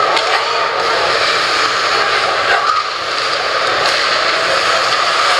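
Steady hockey-arena noise during live play: a continuous roar of crowd murmur and skates on the ice, with a few faint ticks.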